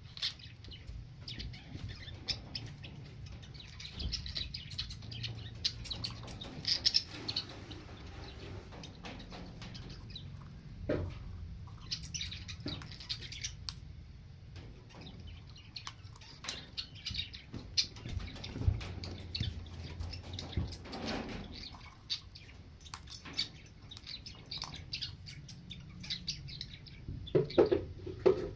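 Parrot chirping and tweeting in many short, scattered calls, with a few louder calls near the end, over a steady low hum.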